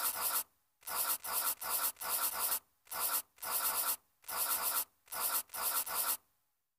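Pencil scratching on paper in a run of short, quick strokes, grouped in bursts of under a second each, as when writing letters; the strokes stop about six seconds in.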